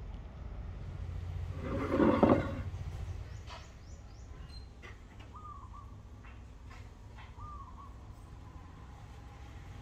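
Short bird chirps every couple of seconds over a steady low hum, with one louder, rough sound lasting under a second about two seconds in.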